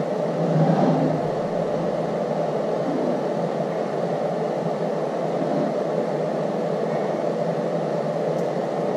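Steady, even background noise with no distinct events: a constant low hum and hiss.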